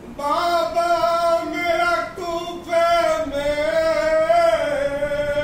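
A man's voice chanting a noha, an Urdu mourning lament, unaccompanied, in long held notes that waver in pitch.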